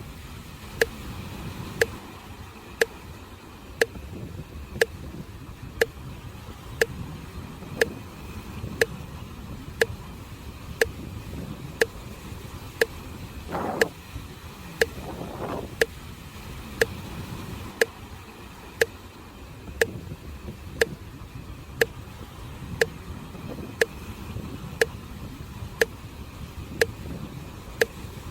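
Sharp, even ticks about once a second, keeping time like a metronome, over the steady wash of sea waves on the shore.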